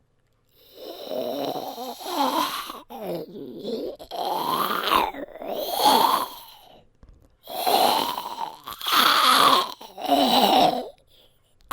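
A person's voice doing zombie growls: a string of about seven rough, throaty growls, each a second or two long, bending up and down in pitch, starting about half a second in, with a short pause in the middle.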